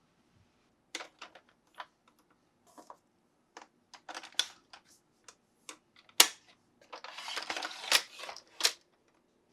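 Sharp plastic clicks and taps of toys and packaging being handled, one after another at an uneven pace, the loudest about six seconds in. About seven seconds in comes a second or so of dense rustling, like packaging being crinkled.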